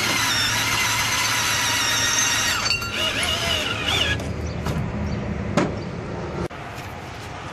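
Cordless drill spinning a strap-winder attachment as it rolls up a cargo strap, its motor whining at high speed. It runs about four seconds, the pitch wavering near the end, then stops; a single sharp knock follows.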